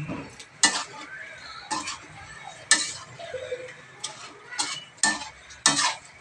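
Metal spatula clanking and scraping against a stainless steel wok as chicken pieces are stirred, about six sharp strikes at uneven intervals, over a low sizzle of frying.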